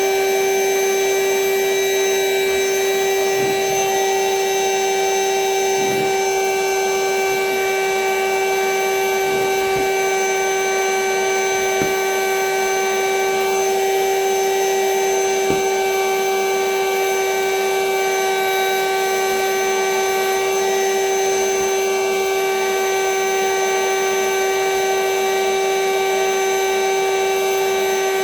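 Vacuum cleaner running steadily with a high, even whine as it sucks the air out of a vacuum storage bag packed with plushies, with a few faint knocks.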